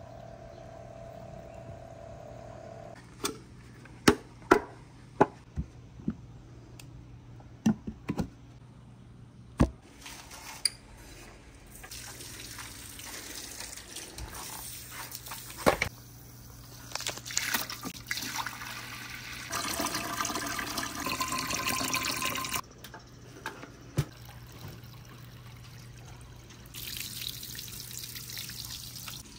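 Marbles on a wooden marble run: a string of sharp clacks as marbles hit the track and each other, then running water streaming down the course with marbles rolling and clicking in it, loudest for a few seconds past the middle. A steady low hum runs underneath.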